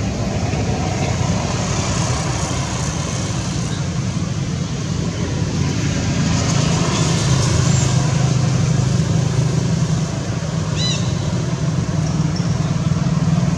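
Steady low rumble of outdoor background noise, with a brief high chirp about eleven seconds in.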